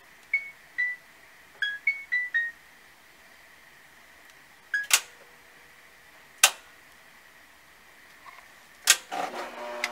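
Front-loading washing machine's control panel beeping as its buttons are pressed: six short high beeps in quick succession, then another beep as Start is pressed. Sharp clicks follow, two of them about a second and a half apart, and a third near the end, where a busier clatter of sound begins.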